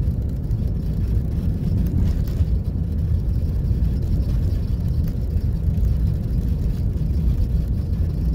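Steady low rumble of a moving car heard from inside the cabin: engine and tyres on a snow-packed road.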